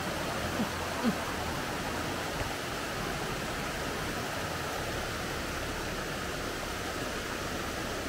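Rushing water of a rocky mountain stream pouring over boulders, a steady even rush.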